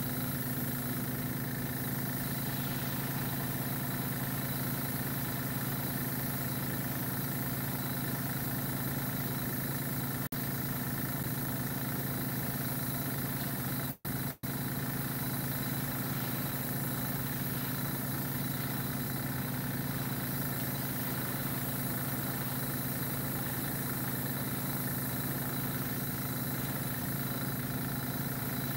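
Small airbrush compressor running with a steady hum; the sound drops out twice for an instant around the middle.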